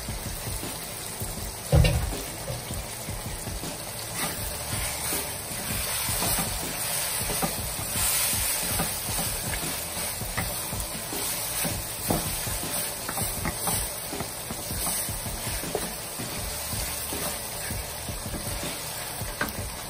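An onion and tomato mixture sizzling in oil in a wok while a wooden spatula stirs and scrapes the pan with small clicks. A single loud knock comes just under two seconds in.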